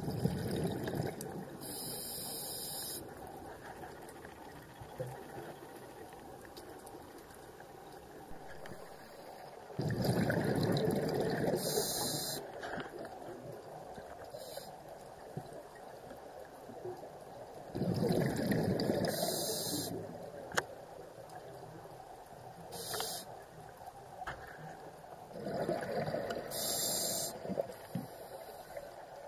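Scuba diver breathing through a regulator underwater: four surges of rushing exhaled bubbles, roughly every eight seconds, each ending in a short high hiss from the regulator.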